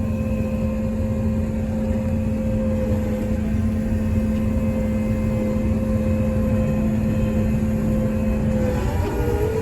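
Combine's engine and drive running steadily, heard from inside the cab: a low rumble under a steady two-tone whine, the higher tone dipping briefly near the end.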